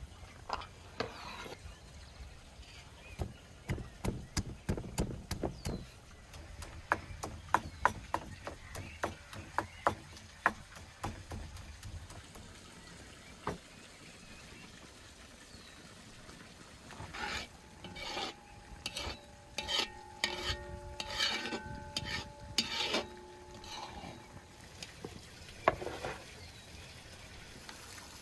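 Garlic cloves being pounded in a wooden mortar: a run of irregular sharp knocks and taps. Later, a utensil stirring and striking the side of a large metal cauldron of stew, the strikes leaving the pot ringing for several seconds.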